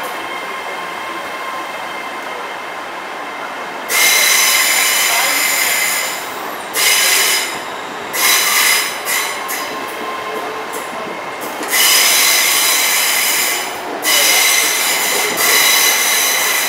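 LNER Azuma (Class 800-series) train moving along a curved platform road over a steady rumble. Its wheels squeal in repeated high-pitched bouts of one to two seconds, the first about four seconds in and the last running into the end.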